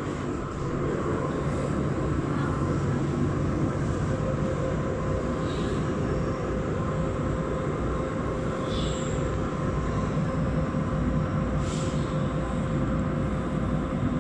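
Steady hum and rumble of running machinery, with a faint steady high tone and a few faint short high ticks.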